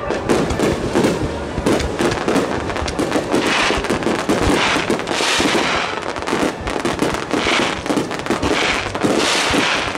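Fireworks finale barrage: many aerial shells bursting in quick succession, with dense overlapping bangs and cracks and about six swells of hiss.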